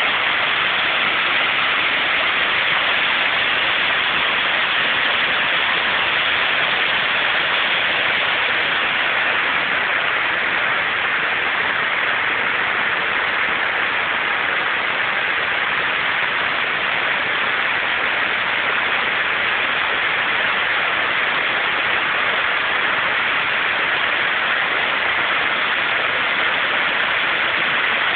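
The Great Falls of the Passaic River, its water pouring and rushing in a steady, unbroken noise.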